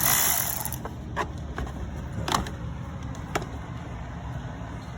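Electric ratchet running in a short burst of just under a second as it spins out an 8 mm engine-cover bolt, followed by a few sharp clicks and light knocks of metal tools and parts.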